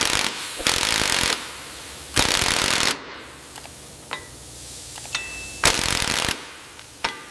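Pneumatic impact wrench rattling on wheel lug nuts in three bursts: a longer first one, a shorter one about two seconds in, and a last short one near the end.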